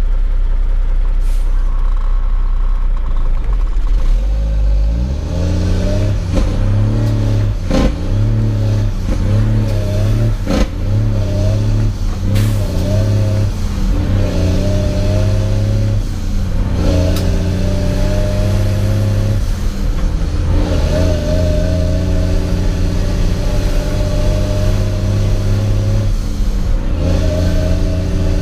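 A semi truck's heavy diesel engine, heard from inside the cab, idles and then pulls away about five seconds in. It works up through the gears of an 18-speed manual transmission, the engine note climbing, dipping briefly at each shift and climbing again several times, with a few sharp clicks along the way.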